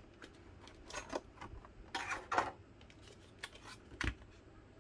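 Clear plastic packaging crinkling and clicking in short, scattered bursts as a small speaker in its tray is slid out of it, with a light knock about four seconds in as it is set down.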